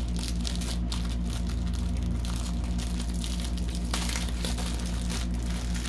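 Small plastic baggies of diamond-painting drills crinkling now and then as they are handled and sorted, over a steady low electrical hum.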